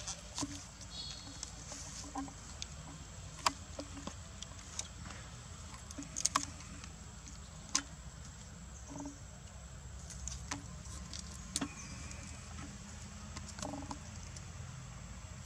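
Quiet outdoor ambience: a steady high-pitched whine over a low rumble, with scattered sharp clicks and a couple of short faint pitched calls around the middle and near the end.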